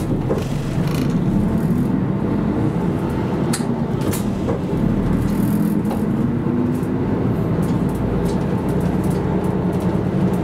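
City bus engine running as the bus drives, its drone rising and falling in pitch with changes of speed, with a few short clicks and rattles from the cabin.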